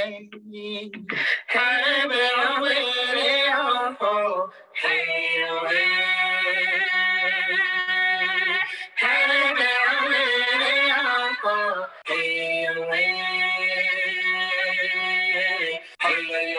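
A recorded Indigenous song playing: voices singing long held phrases of about three to four seconds each, with short breaks between them, over a steady low note underneath.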